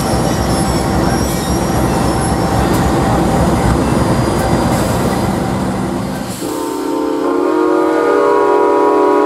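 A BNSF diesel freight train rolling past, with heavy rumble and rail noise. About six seconds in, a train horn sounds a steady multi-note chord, held for about three seconds.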